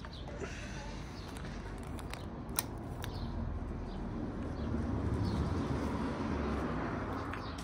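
Low-level outdoor ambience: faint bird chirps, a few sharp clicks, the loudest about two and a half seconds in, and a low rumble that swells a little past the middle.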